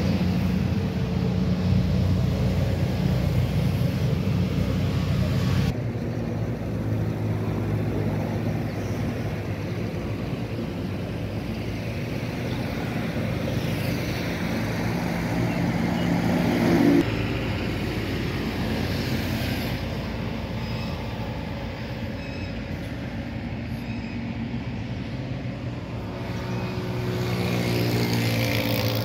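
Road traffic: motor vehicle engines running steadily, with one vehicle's engine rising in pitch as it passes near the end.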